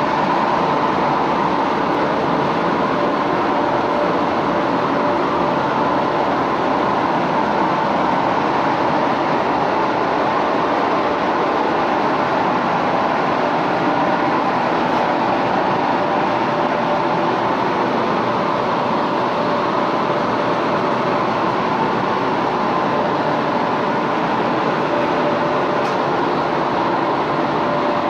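Spray booth ventilation running: a loud, steady rush of moving air with a faint hum in it.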